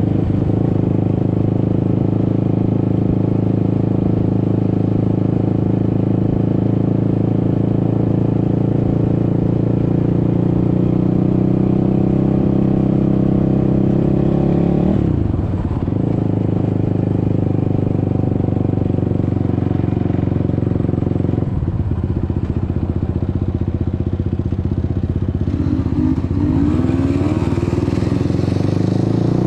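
Suzuki LT-R450 quad's single-cylinder four-stroke engine running steadily at riding speed. The revs dip and climb back about halfway through, and change again a few seconds later.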